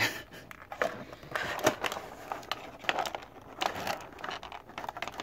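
Thin clear plastic packaging crinkling and crackling in irregular snaps as hands work an action figure out of its tray.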